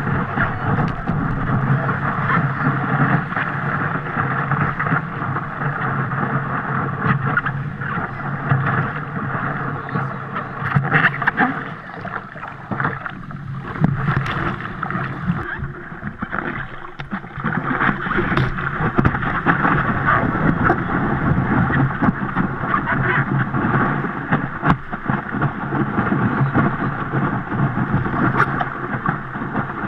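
Whitewater rushing and splashing around a surfboard riding a wave, heard close up from a camera mounted on the board's nose, with irregular splashes throughout.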